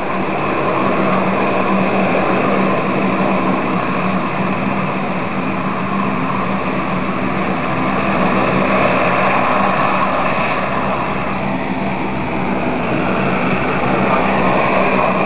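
Steady, loud engine noise with a constant low hum, running without a break.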